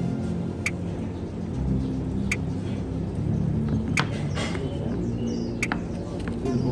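Quiet background music: a low sustained drone with a sharp tick about every second and a half.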